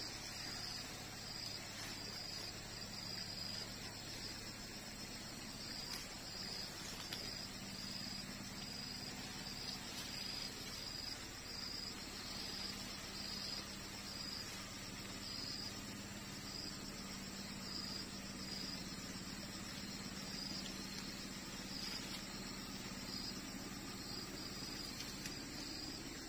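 Crickets chirping in a steady run of short, evenly repeated high-pitched pulses, over a faint low steady hum.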